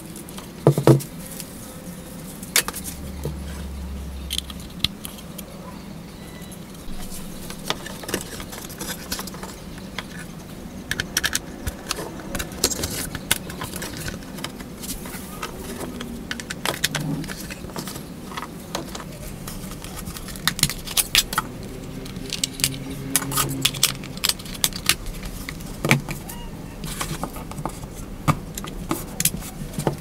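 Hands handling cables, plugs and plastic parts on a workbench: a scattered string of clicks, taps and light rattles, busiest in the second half, over a steady low hum.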